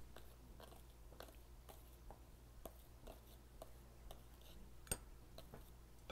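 Plastic spoon scraping and tapping powdered milk out of a metal can into a plastic bowl: faint short scrapes about twice a second, with one sharper click about five seconds in.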